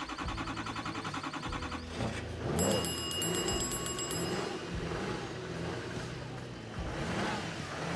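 Rapid electronic beeping with several high tones for about two seconds near the middle, over a low steady rumble.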